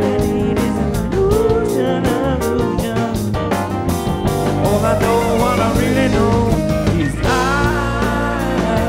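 Live rock band playing a song, with a man singing lead vocals into a microphone over the instruments.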